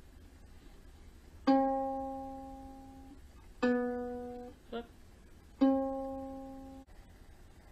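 Kala Ukadelic soprano ukulele's C string plucked three times, about two seconds apart, each note ringing out and fading, while it is tuned to pitch. A short clipped note comes between the second and third plucks.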